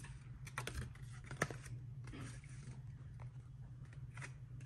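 A folded paper instruction leaflet being unfolded and handled, giving a few sharp crinkles and clicks, the sharpest about a second and a half in. A low steady hum runs underneath.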